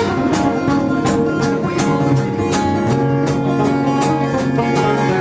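Steel-string acoustic guitar playing a live instrumental introduction, picked notes ringing over a steady rhythm of about two strokes a second.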